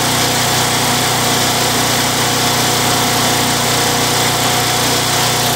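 Craftsman Eager 1 mower's Tecumseh 92cc engine running at an even, steady speed with no surging: the surge it had is cured.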